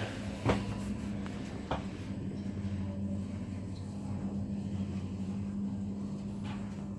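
Schindler 5400 passenger lift car travelling between floors: a steady low hum from the drive, with two light clicks in the first two seconds.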